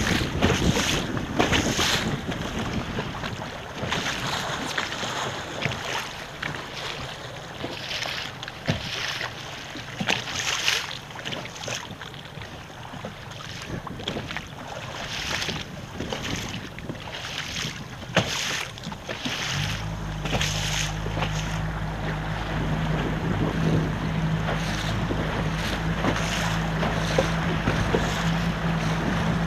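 Wind buffeting the microphone and water splashing and rushing against a sailing dinghy, in uneven gusts. About two-thirds of the way through, a steady low hum joins in and continues.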